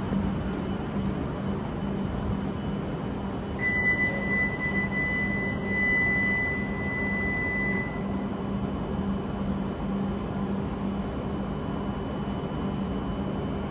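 A door-closing warning buzzer on a Shinkansen platform sounds as one steady high tone for about four seconds, starting about three and a half seconds in. Beneath it is the steady low hum of an E7-series bullet train standing at the platform.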